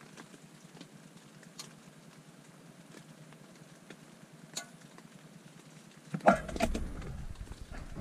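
Mostly quiet with a faint steady hiss and two light clicks from a cooking pot being handled, then louder rustling and bumping of movement from about six seconds in.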